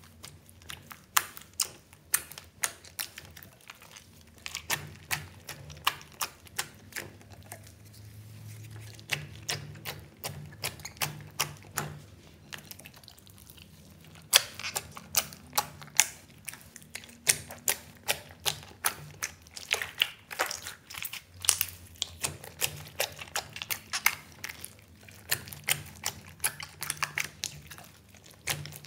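Slime with foam beads and buttons mixed in being squeezed and kneaded by hand in a glass bowl, making sticky clicks and pops several times a second, with a couple of quieter stretches.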